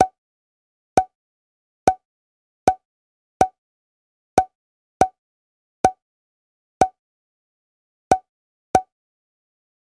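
Eleven short pop sound effects, each with a brief mid-pitched tone, spaced irregularly about a second or less apart. Each one marks a new group of figures popping up in an animation.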